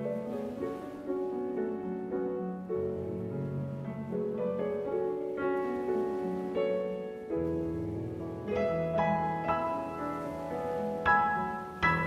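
Slow piano music with held notes, growing fuller with deeper bass notes from about halfway through.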